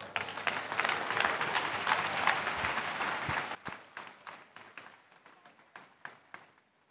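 Congregation applauding: dense clapping for about three and a half seconds, then thinning to scattered claps that die away.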